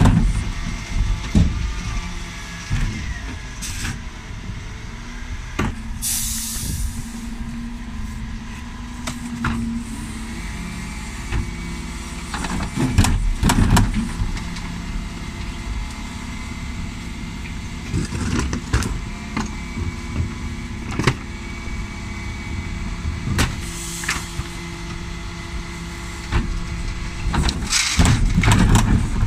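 Dennis Elite 6 refuse truck's engine running while its Terberg bin lift raises and tips wheelie bins. Plastic bins and the steel lift knock and rattle, loudest about halfway through and near the end. Short bursts of air hiss come twice.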